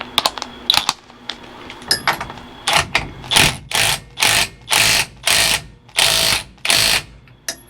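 Hand ratchet with a socket working the steering-wheel nut on the column shaft: a few scattered clicks, then a run of about nine quick ratcheting strokes, roughly two a second.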